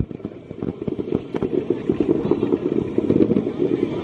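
Aerial fireworks shells bursting into crackling stars: a rapid, dense run of crackles and pops.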